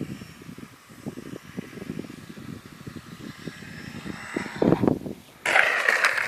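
Radio-controlled model airplane's motor, faint under gusty wind rumble on the microphone, as the Cessna 182 model comes in to land. A sudden louder burst of noise starts about five and a half seconds in.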